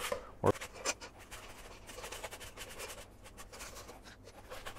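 White cabbage wedge pushed back and forth across a mandoline slicer's blade, a run of quick soft scraping strokes as it is cut into thin strips, with a short thump about half a second in.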